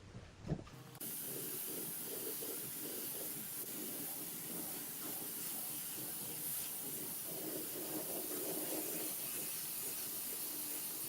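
Steady hiss of compressed air escaping from a nozzle, starting abruptly about a second in.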